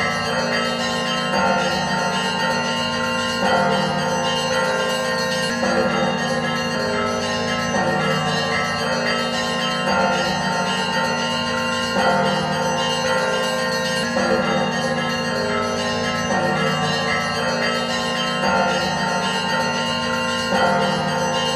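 Church bells ringing together in a continuous peal, many bells sounding at once with a louder stroke about every two seconds.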